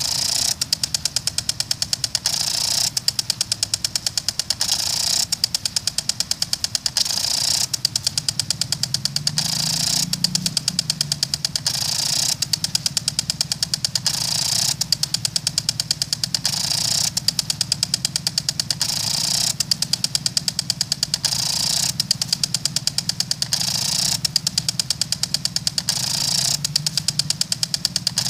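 Melnor impact sprinkler running: its spring-loaded arm ticks rapidly and steadily against the water jet, over a hiss of spray that swells about every two seconds.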